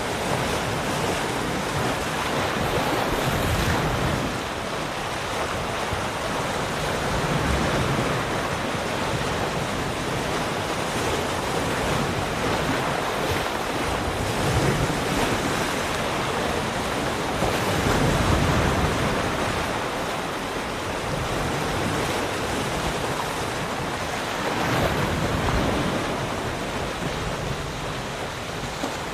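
Ocean waves breaking and washing on the shore in a continuous rush, swelling and easing every few seconds.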